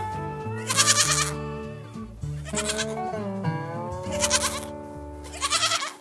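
Goat bleating about four times, each bleat short and wavering, over background music.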